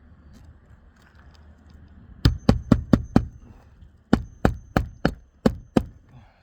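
Nails being driven into a roof shingle: two quick runs of sharp strikes, five and then seven, about four or five a second.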